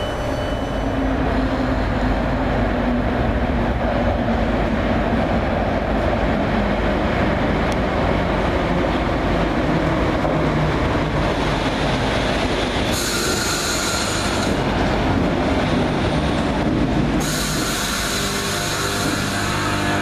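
Electric multiple unit train running into an enclosed underground platform, a steady loud rumble of wheels and motors. Two spells of high-pitched squealing come near the end, first briefly about two-thirds of the way in, then again for the last few seconds as the train draws alongside the platform.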